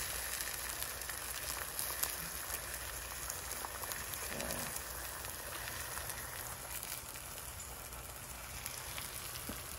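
Eggs and slices of scrapple frying in butter in a cast-iron skillet: a steady sizzle with fine crackling pops, easing slightly toward the end.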